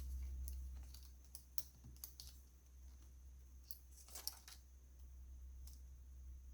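Faint, irregular light clicks and ticks of a small screw and screwdriver being handled while the laptop's hard-drive screw is fitted, over a steady low hum.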